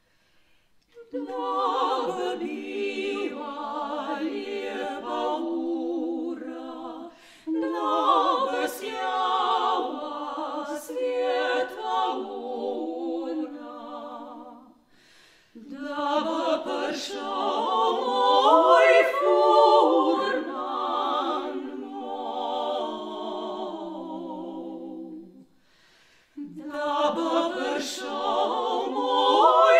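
Women's vocal trio singing unaccompanied in a classical style, in long phrases separated by short breaths of near silence.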